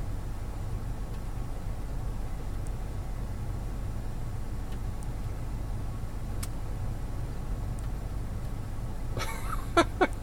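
Vehicle engine idling as a steady low hum, with a few faint ticks and, about nine seconds in, a short cluster of louder sharp sounds.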